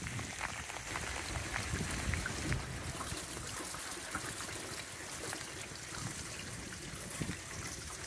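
Rainwater trickling steadily through a rain-catchment system of downspout diverter, PVC pipe and IBC tote, with scattered drips.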